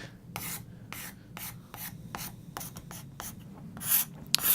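Sandpaper rubbed by hand along a wooden crosscut saw handle, in quick back-and-forth rasping strokes, about three a second, with one louder stroke near the end.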